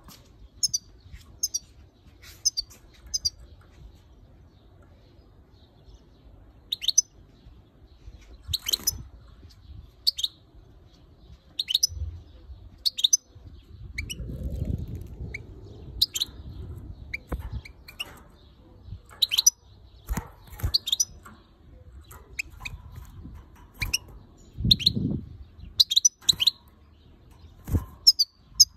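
Female European goldfinch calling: short, high chirps repeated irregularly, often in quick pairs or clusters, which the owner takes for anger at the camera. A low rumble comes about halfway through and again a few seconds before the end.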